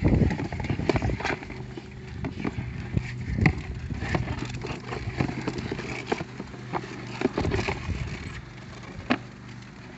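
Box turtles' shells and claws knocking and scraping on the plastic walls and floor of a cooler as they crawl and are handled, in irregular clicks and knocks. A steady low hum runs underneath.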